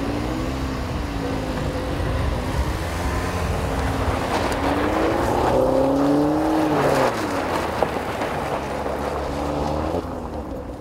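A 2014 Chevrolet Sonic's 1.4-litre turbocharged four-cylinder, heard through its Borla aftermarket exhaust, pulls away across gravel. The engine note rises and falls through the revs, climbs to its highest about six to seven seconds in, then drops away.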